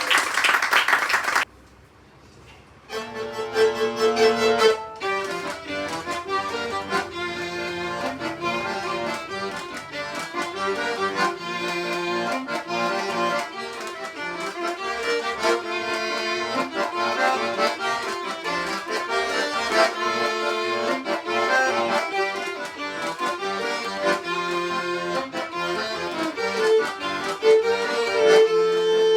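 Applause ends in the first second or two, a short pause follows, and then live instrumental music begins about three seconds in and plays on with held, layered notes.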